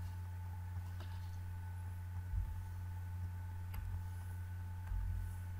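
Steady low hum with two faint, thin, steady high tones above it and a few faint ticks: background room tone of the recording.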